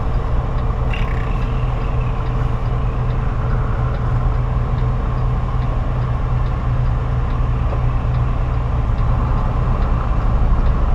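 Semi truck's diesel engine running as the truck creeps along at low speed, a steady low drone heard from inside the cab.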